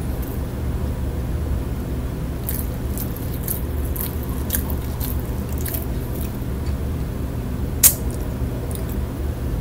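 Close mouth noises of a person chewing food: scattered small clicks and smacks, with one sharper click about eight seconds in, over a steady low hum.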